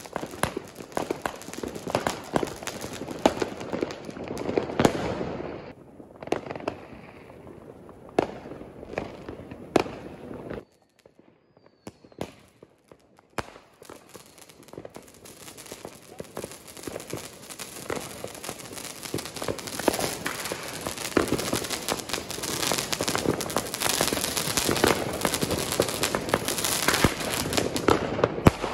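Fireworks going off in a dense string of bangs and crackles. It drops almost to silence for a few seconds around eleven seconds in, then comes back and thickens into a near-continuous crackle toward the end.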